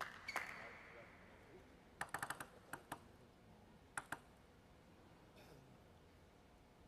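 Table tennis ball clicking on hard surfaces: a sharp click near the start, a quick run of about five clicks about two seconds in, two more just after, then a pair of clicks about four seconds in.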